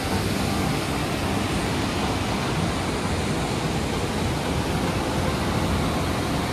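Fast-flowing river water rushing steadily and loudly.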